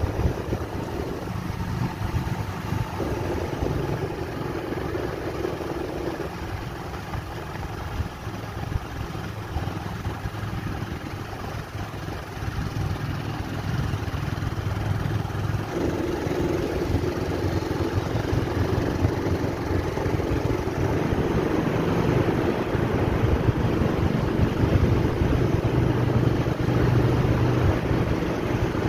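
A two-wheeler's engine running steadily while riding through a road tunnel, with road and wind noise, growing louder about halfway through.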